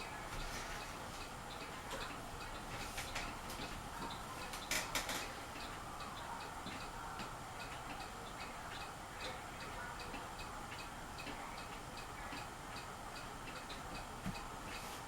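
Fasco Charleston ceiling fan running with a steady hum and a light rhythmic ticking, about three ticks a second. A few sharper clicks come about five seconds in.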